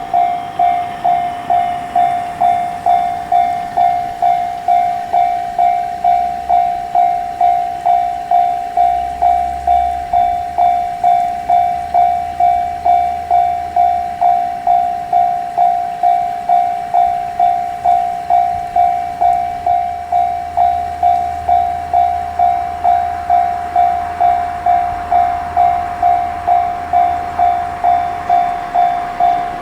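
Japanese railroad crossing warning bell ringing its steady "kan-kan" about twice a second. A train rumbles past through most of it.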